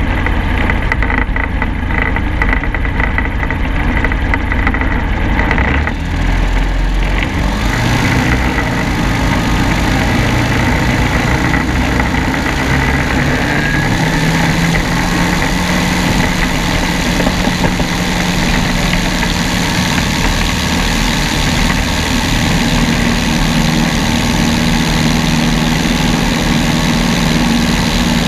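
Propeller aircraft engine running through a take-off from grass and the climb-out. The engine note and overall noise rise about seven seconds in as power comes up for the take-off run, then hold steady.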